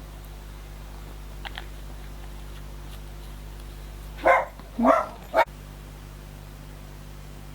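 A dog barking three times in quick succession, a little after four seconds in.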